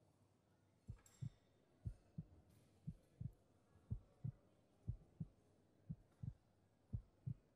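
Heartbeat: low double thumps, lub-dub, about once a second, starting about a second in.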